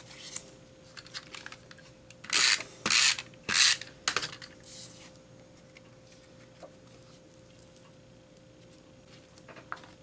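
Cardstock pieces being slid and shuffled across a paper layout by hand: three short paper swishes a couple of seconds in, with lighter rustles around them.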